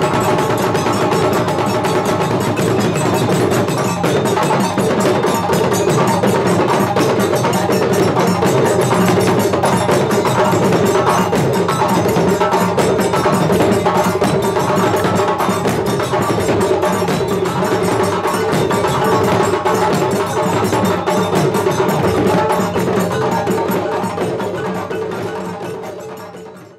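Live Malian Khassonke drum ensemble, djembes over dundun bass drums, playing a fast, dense dance rhythm with a ringing, bell-like edge. It fades out over the last few seconds.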